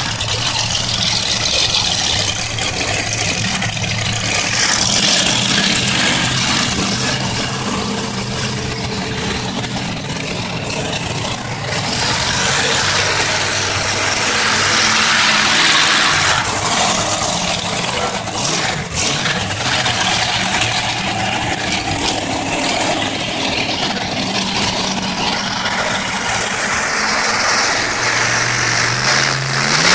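Monster truck engine running at low revs while the truck moves slowly across the lot, with the revs rising near the end.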